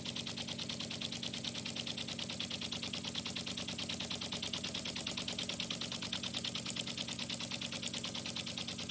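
Small model beam engine running steadily, with a fast, even beat of hissing exhaust puffs and clicking linkage at about eight a second.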